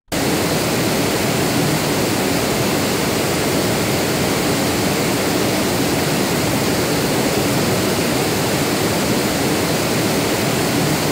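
Steady, even hiss of pink-noise test signal playing back from an audio editor, spread from deep lows to the top of the range. It cuts in suddenly at the start.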